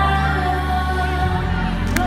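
Music for an artistic roller skating routine: held bass notes under a sustained melody line, the bass changing about a second and a quarter in.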